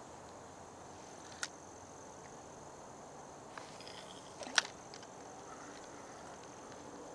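Steady high-pitched drone of insects, with two sharp clicks, a faint one about a second and a half in and a louder one about four and a half seconds in.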